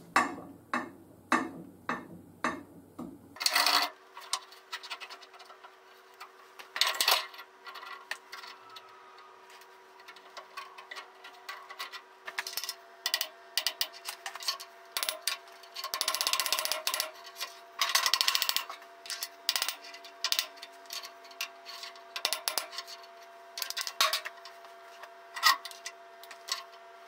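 Steel screw clamps clinking, knocking and scraping as they are set on a cast iron exhaust manifold resting on a steel plate and screwed down, with irregular metal clicks and a stretch of rubbing about two-thirds of the way through.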